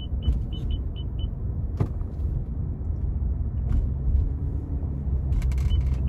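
Steady road and engine rumble inside a moving car's cabin, with the air-conditioning fan blowing. A turn signal ticks rapidly, about four ticks a second, stopping about a second in and starting again near the end.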